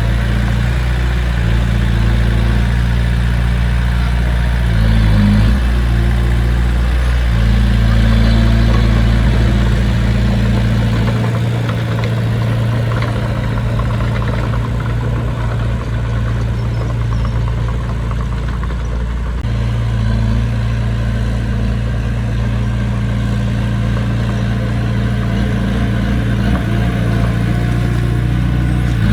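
A heavy machine's diesel engine running steadily, its note shifting a few times.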